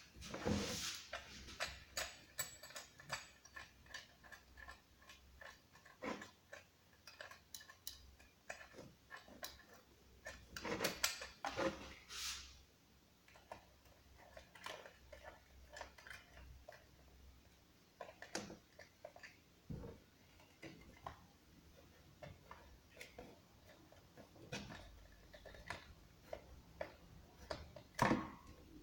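Handling noise from unpacking: scattered clicks, taps and knocks of parts being picked up and set down, with a few louder rustling bursts of packaging about a second in, around ten to twelve seconds, and near the end. The room is small.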